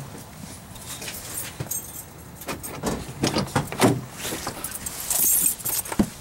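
Keys jangling along with footsteps and handling knocks as someone walks to a pickup's driver door and climbs into the cab, with several louder thumps around the middle.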